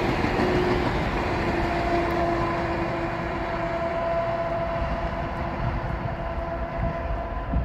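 Passenger train passing: historic coaches and a trailing BB 67611 diesel locomotive rolling by on the rails with a steady rumble, a few steady tones running over it. The sound grows a little fainter toward the end as the train draws away.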